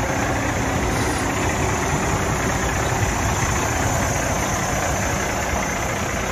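Cummins diesel engine of a 2009 International ProStar day cab tractor idling steadily.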